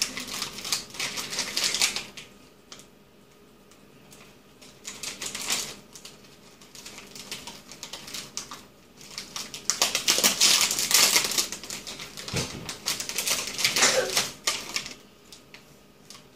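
Plastic Twizzlers candy bag crinkling and crackling in several bursts as it is handled and licorice twists are pulled out.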